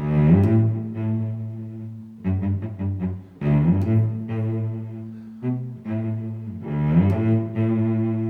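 Background music: a low-pitched melody with distinct notes, repeating a short phrase about every three and a half seconds.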